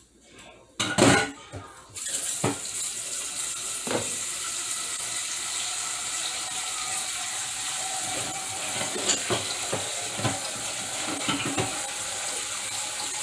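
A single clunk about a second in, then a kitchen tap turned on about two seconds in, with water running steadily into the sink.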